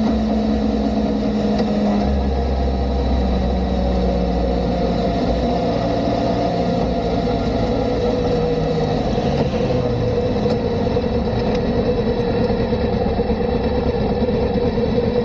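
Kawasaki ZR-7S air-cooled inline-four motorcycle engine running steadily, with a steady whine over the engine note.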